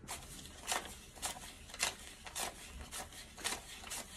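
US dollar bills being counted by hand, each note peeled off the stack with a short crisp paper flick, about two a second.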